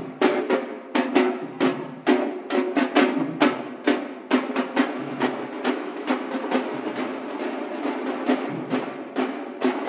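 A group of large shoulder-slung barrel drums beaten hard in a fast, driving rhythm, several strokes a second, over a steady pitched drone.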